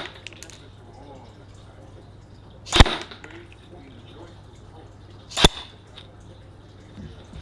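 Specna Arms M4 Core airsoft electric rifle firing two single shots, about two and a half seconds apart, each a sharp crack.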